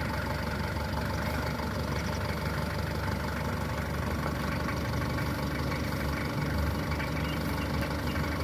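Large diesel engine of heavy machinery idling steadily, with a low, even drone.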